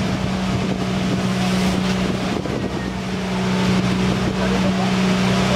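Small engine of a banka outrigger boat running steadily under way, a constant low drone, with wind buffeting the microphone.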